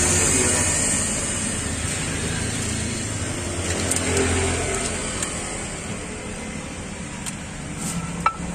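A motor vehicle's engine running close by, a steady low hum that fades after about four and a half seconds. A sharp click comes near the end.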